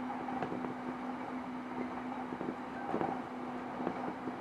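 Running sound of a JR East E233 series 0 electric commuter train between stations: a steady hum over a rumble, with irregular clicks and knocks from the wheels on the rails.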